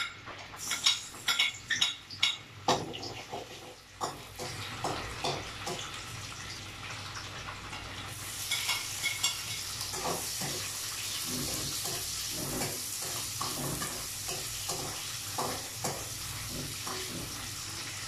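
Garlic and onion frying in oil in a wok, a metal ladle clinking and scraping against the pan as they are stirred. The sizzling grows louder about eight seconds in.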